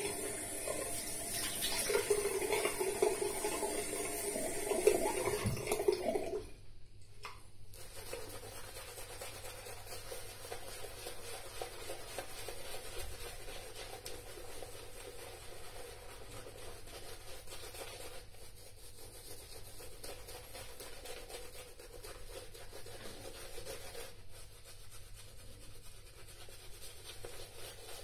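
Tap water running into a sink while the face is splashed, for about six seconds until the tap is shut off. Then an Omega shaving brush is worked over the face, a soft, steady swish of bristles through lather.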